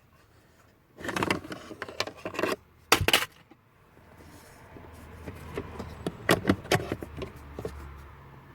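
Plastic rattling and clattering from behind the glovebox in a Škoda Octavia II's dashboard, with a sharp knock about three seconds in. From about four seconds the car's low running noise builds underneath, with more rattles over it.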